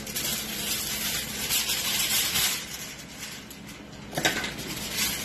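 Aluminium foil crinkling and rustling as it is folded by hand into a packet around a fish on a baking sheet, with a sharper crackle about four seconds in.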